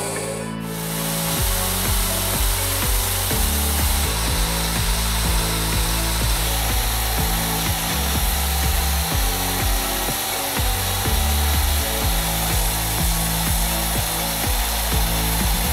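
Electric drill clamped in a vise, spinning a turned steel part while it is rubbed with abrasive paper: a steady rubbing hiss of the sanding. Background music with a bass line runs under it.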